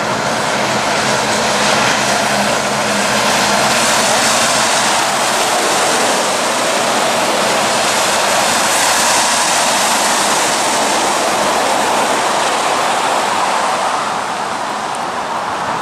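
Heavy diesel trucks passing on a wet highway: a loud, steady hiss of tyres and spray on the wet road, with a low engine drone underneath, easing off near the end. Wind and rain are on the microphone.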